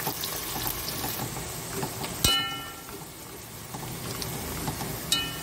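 Sliced onions and whole spices frying in hot oil in a large metal pot, a steady sizzle. A metal ladle strikes the pot with a short ringing clink a little over two seconds in, and again near the end.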